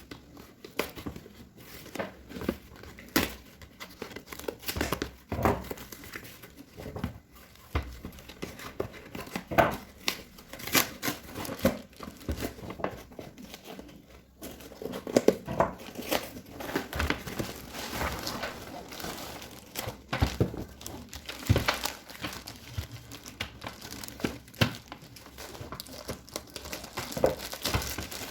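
Packaging being handled and opened by hand: irregular crinkling and crumpling with tearing, and many sharp clicks and knocks along the way.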